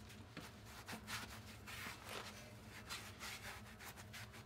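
Faint rubbing of a cloth rag wiping degreaser over a brake rotor: a string of soft scrubbing strokes over a low, steady hum.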